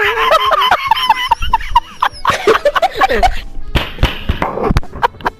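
A person's wheezing laugh: a quick run of short, high, squeaky sounds, with music playing underneath.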